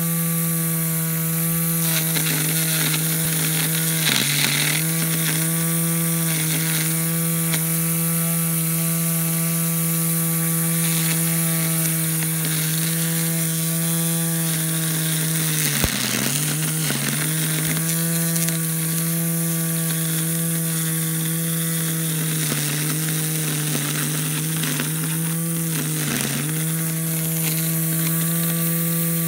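String trimmer mounted on a small robot rover, its motor running at a steady high hum as it cuts weeds. The pitch sags briefly about half a dozen times, typical of the spinning line loading up in thicker growth.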